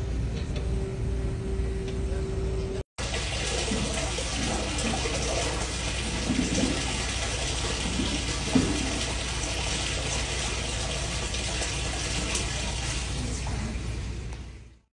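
Water gushing and splashing into the bottom of a newly dug well lined with concrete rings: groundwater coming in, the sign that the well has struck water. A steady rushing noise, with a steady hum under it for the first three seconds.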